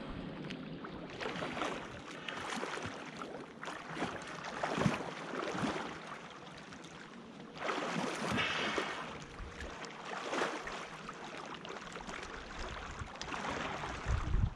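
Water splashing and sloshing around people swimming at the surface, in uneven surges every couple of seconds, with a few small knocks.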